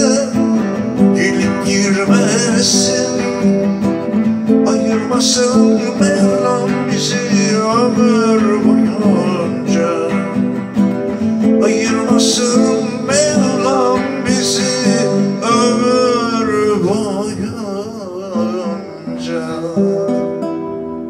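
A man singing with wavering, ornamented vocal lines while strumming an acoustic guitar. The music fades down over the last few seconds.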